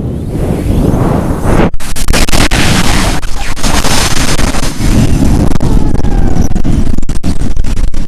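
Strong wind gusting against the microphone: a loud, rumbling rush that builds over the first couple of seconds, broken by a few very brief gaps.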